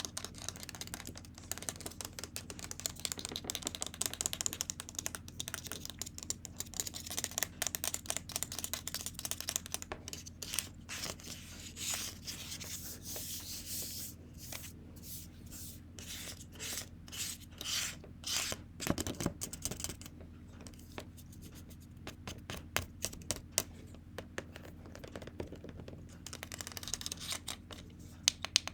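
Hair being worked with a hair iron close to the microphone: dense runs of quick rubbing and scratching strokes with many small clicks.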